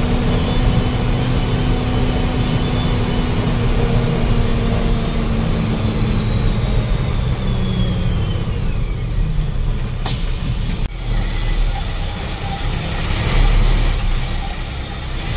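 A bus running on the road, with steady low engine and road rumble. Partway through, a whine from the drivetrain falls in pitch as the bus slows. Two sharp clicks come about ten seconds in, then a short hiss near the end.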